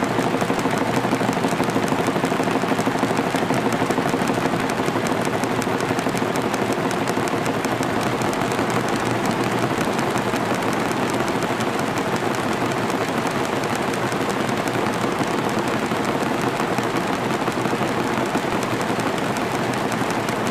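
Many small DC motors spin bent wires against cardboard boxes, making a dense, steady clatter of countless fine taps and scratches, like rain on cardboard.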